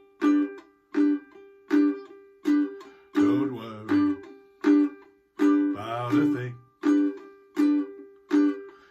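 Ukulele strumming short, choppy off-beat chords, about one every three-quarters of a second, in a small room. Twice a fuller passage with a low part joins the chords briefly.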